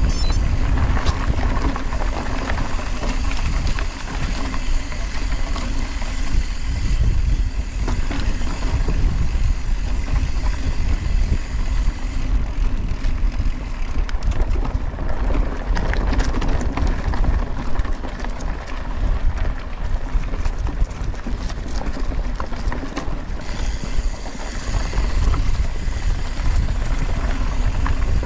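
Wind rushing over an action camera's microphone with a low rumble, mixed with the crunch and clatter of mountain-bike tyres and frame over a rough dirt trail. The higher hiss and rattle drop away for about ten seconds midway.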